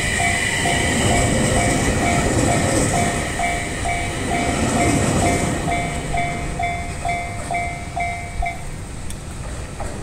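Level-crossing warning bell ringing in an even on-off ding, about two strikes a second, over the running rumble of a passing E721-series electric train. The bell stops about eight and a half seconds in.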